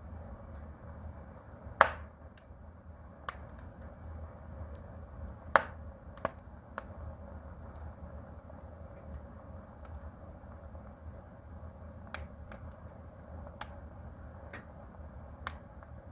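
Wood fire crackling in a fireplace: irregular sharp pops, the two loudest about two and five and a half seconds in, over a steady low rumble.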